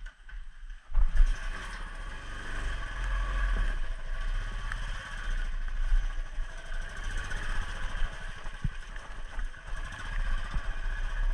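Motorcycle engine starting about a second in, then running steadily as the bike sets off.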